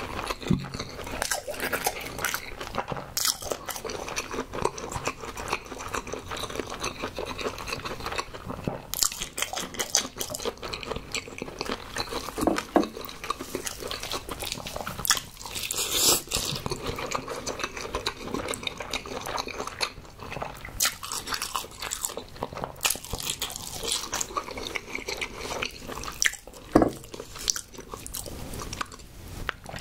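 Close-miked chewing of a mouthful of crab bibimbap: a dense run of wet mouth clicks, smacks and small crunches.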